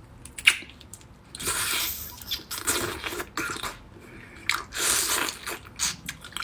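Raw drunken prawns being peeled and eaten close to the microphone: shells cracked and pulled off, and wet chewing, in several short bursts.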